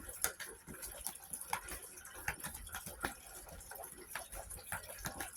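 Tarot cards being handled and laid down: faint, irregular small clicks and taps of cardstock over low background hiss.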